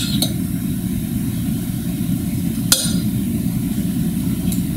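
Metal measuring spoons on a ring clinking, once just after the start and again near three seconds in, over a steady low hum.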